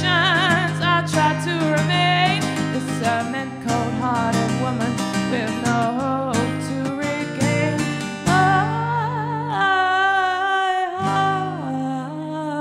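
A woman singing long, wavering held notes over her own strummed acoustic guitar.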